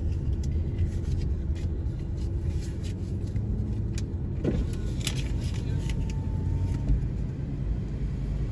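Steady low rumble of an SUV's engine and road noise heard inside the cabin, with scattered light clicks and knocks.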